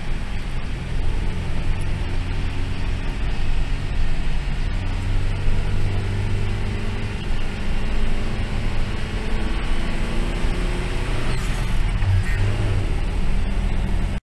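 Engine and road noise heard from inside a vehicle driving on a wet highway: a steady low drone under the hiss of tyres on the wet road.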